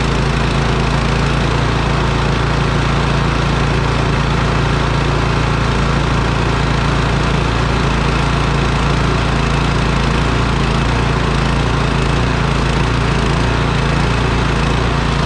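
Troy-Bilt Storm 2600 snowblower's 208cc single-cylinder engine running steadily just after a cold start, with the choke on.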